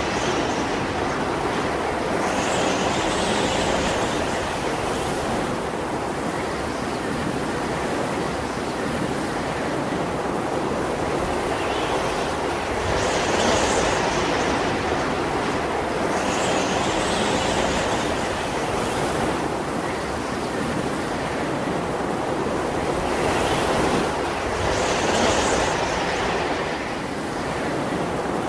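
Sea surf with a continuous roar of waves. The hiss swells every few seconds as individual waves break and wash in.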